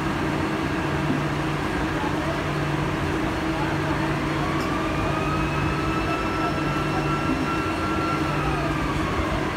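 Steady industrial machinery drone while a large girth gear is turned slowly in mesh with its pinion. A faint whine rises a few seconds in, holds, and drops away near the end.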